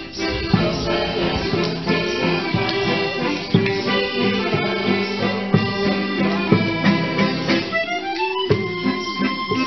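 Instrumental background music with sustained, reedy melody notes.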